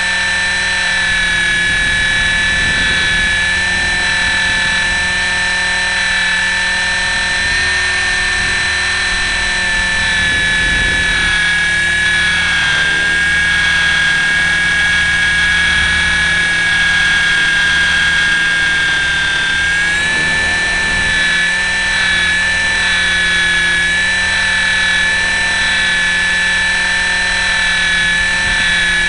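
Electric KDS 450Q radio-controlled helicopter in flight, heard from its onboard camera: a steady high motor and gear whine. The whine sags a little in pitch partway through and rises again about twenty seconds in.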